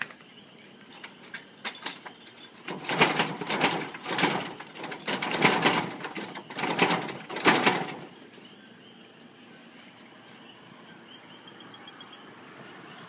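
A bunch of keys jangling and scraping in a metal door lock, in several rattling bursts that stop about two-thirds of the way through.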